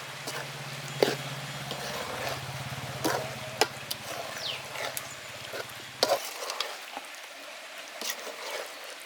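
Chicken chukka sizzling in a kadai while a metal ladle stirs and scrapes it, with sharp clinks of the ladle against the pan. A low hum underneath cuts off about six seconds in.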